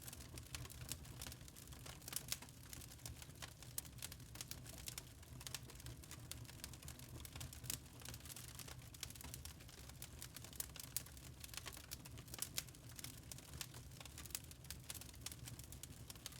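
Log fire burning in a fireplace: wood crackling in irregular sharp clicks, several a second, over a steady low rumble.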